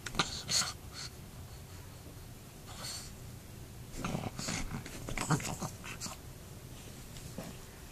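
A pug making short breathy noises in a string of bursts as it grabs at a plush toy, busiest about four to six seconds in.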